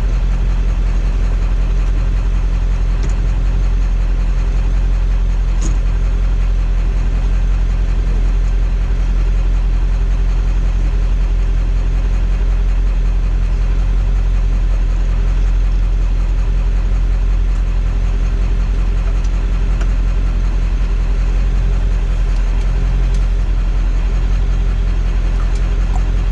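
Ford F-350 pickup's engine running with a steady low drone and no change in pitch.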